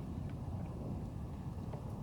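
Wind buffeting the microphone: a steady low rumble, with a few faint ticks over it.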